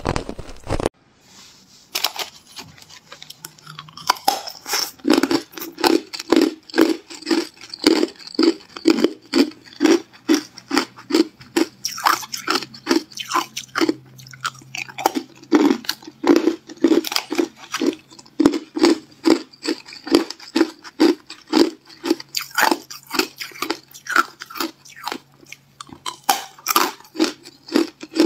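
Hard clear ice cubes being bitten and chewed in the mouth: a steady run of loud crunches, about two a second, starting after a brief pause about a second in.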